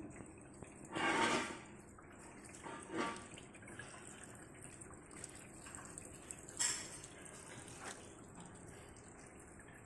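Water from a hose running into the stainless-steel drum of a turmeric and kencur peeling machine, a steady trickle with louder splashes about a second in, again at three seconds and near seven seconds.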